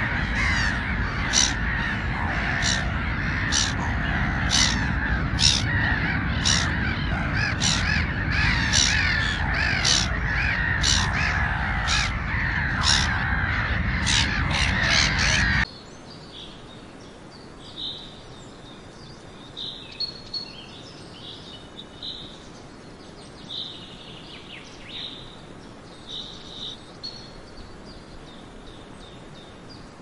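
Gulls calling harshly and continuously, many overlapping cries with sharp calls cutting through about every second. Just past halfway it cuts off abruptly to a quiet outdoor hush with occasional short, high bird chirps.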